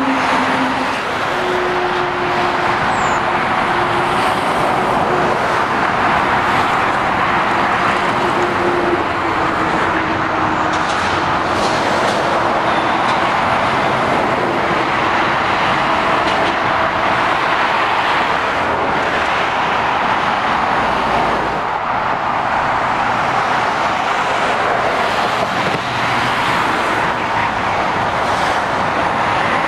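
Steady road traffic on a busy trunk road: a continuous roar of tyres and engines from lorries, vans and cars driving past. A faint engine drone sits under it for roughly the first ten seconds.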